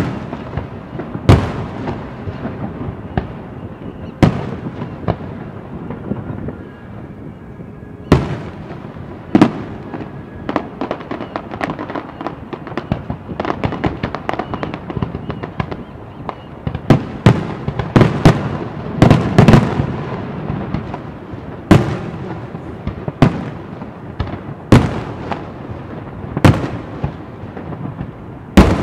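Aerial fireworks shells bursting in an irregular series of loud booms, each trailing off in an echo. The bursts come thick and fast about two-thirds of the way through.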